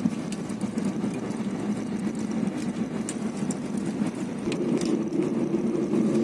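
Airliner cabin noise during landing: a steady rumble of jet engines and rushing air heard from inside the cabin. About four and a half seconds in, a steadier hum rises over it.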